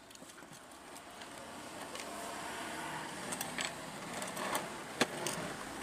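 Hands pulling wires and a circuit board through an open amplifier case: a steady rustle and scrape of handling, with a few sharp clicks and knocks, the loudest about five seconds in.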